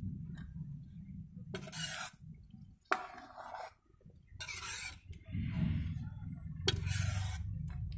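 Metal ladle stirring a thick mutton curry in a metal cooking pot, scraping the bottom and sides in a series of separate strokes about a second apart, over a low steady rumble.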